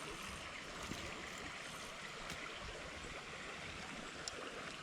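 Creek water running steadily, with a few faint ticks.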